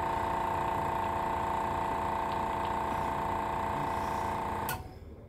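Small airbrush air compressor motor running with a steady hum, cutting off abruptly near the end.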